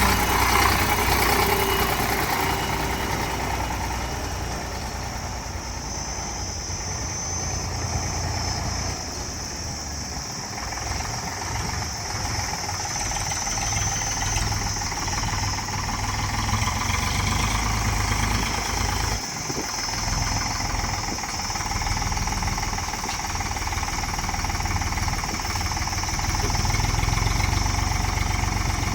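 Heavy vehicle engine running steadily at low speed, its loudness swelling and easing slightly.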